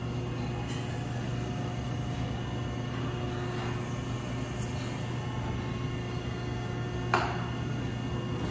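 Hydraulic cylinder bench's power unit running with a steady electric hum while its wrench mechanism turns the cylinder gland off. A single sharp metallic clank about seven seconds in.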